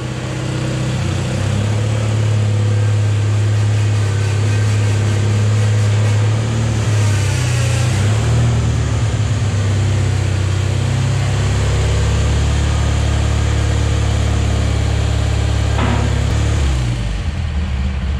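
Small engine of an old Bolens garden tractor running as the tractor drives in. Its note shifts a couple of times along the way, and the steady engine sound drops away near the end.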